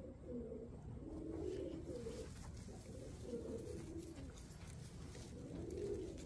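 Domestic pigeons cooing, a string of soft, low, rolling coos one after another.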